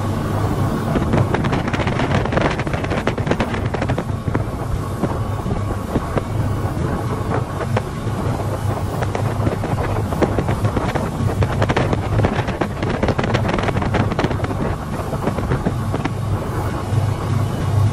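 Speedboat running fast through choppy water: a steady low engine drone under the rushing of the wake and spray, with irregular splashes and slaps as the hull hits the waves, and wind buffeting the microphone.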